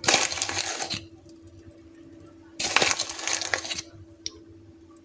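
Two bursts of crackling rustle, each about a second long, as chocolate vermicelli sprinkles are handled and scattered over the tops of mug cakes. A faint steady hum runs underneath.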